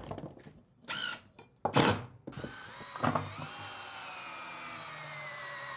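Cordless drill driving wood screws through a hardboard template into pressure-treated lumber: two short bursts, then a long steady run of motor whine that sinks slightly in pitch as the screw drives in.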